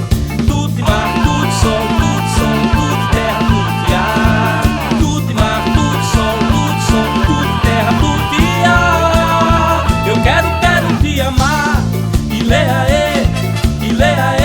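Upbeat Brazilian carnival band music: a fast steady beat and bass under a lead melody, with no sung words.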